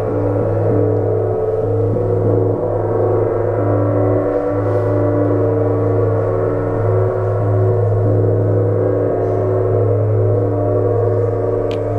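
Large hand-held Chinese gong ringing on loudly and steadily after being struck, a deep hum under a higher shimmer of many tones that waver slightly as the gong is carried about.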